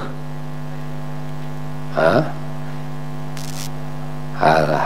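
Steady electrical mains hum in the microphone and sound-system chain, broken by a short vocal sound about two seconds in and a man starting to speak near the end.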